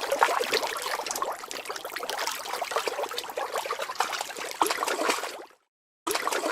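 Water splashing and dribbling in many quick small splashes, a swimming-fish sound effect. It cuts off about five and a half seconds in and starts again about half a second later.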